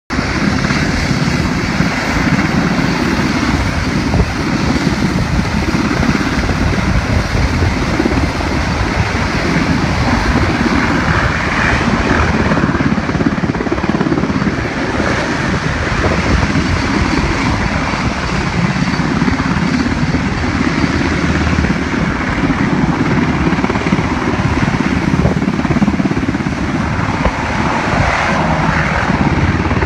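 Military helicopter rotors and engines running, a loud, steady noise.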